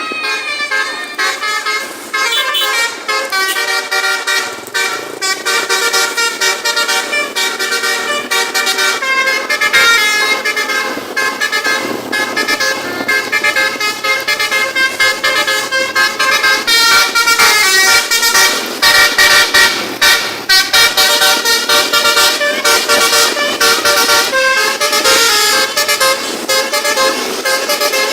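Telolet multi-tone bus horns played in quick melodic runs, several horn notes stepping from pitch to pitch and overlapping. A strong hiss sits under the notes, heaviest in the second half.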